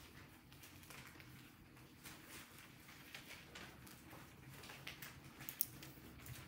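Faint rustling and soft ticks of Bible pages being turned at a pulpit, with one sharper click about five and a half seconds in.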